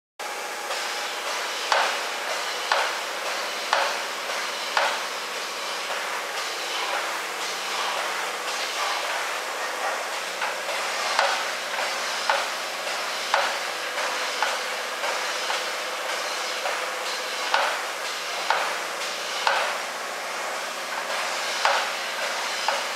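Lowrider hydraulic suspension running a switch program: the electric pumps whine steadily under sharp clacks about once a second, in runs of three to five, as the car is lifted and dropped.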